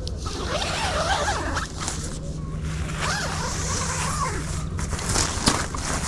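Faint voices in the background, with light rustling and a few knocks.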